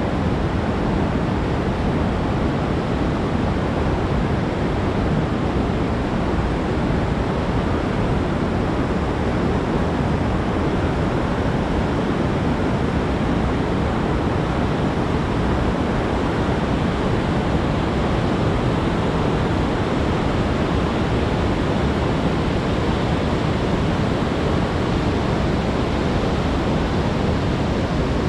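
Steady rushing noise of wind on the microphone of a moving camera, deepest in the low range and unbroken throughout.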